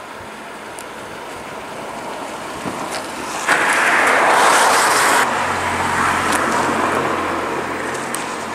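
Outdoor vehicle noise: a loud rush that starts suddenly about three and a half seconds in and stops suddenly a couple of seconds later, followed by a low steady engine hum.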